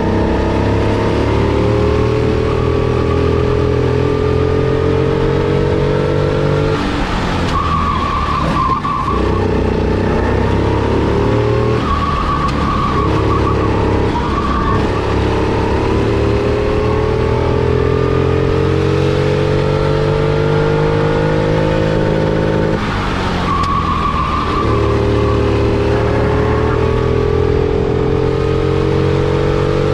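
Onboard sound of a four-stroke kart engine at full throttle, its pitch climbing steadily along each straight and falling sharply when the driver lifts off for a corner, about four times.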